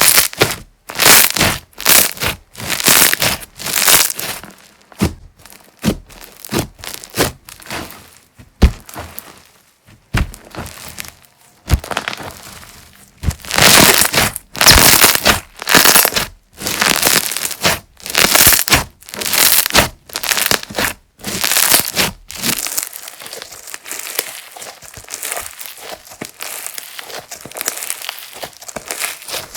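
Slime being squeezed and pressed by hand: a run of wet, crackling squishes, roughly one or two a second, softer for a few seconds near the end.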